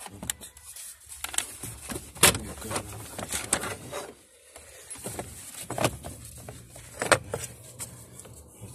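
Plastic dashboard trim panels being handled and pulled loose around a Toyota FJ Cruiser's steering column: a series of irregular sharp clicks and knocks with plastic rattling.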